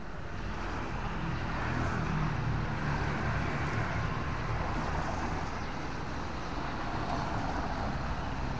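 Steady rain with a constant rushing hiss and a low rumble underneath.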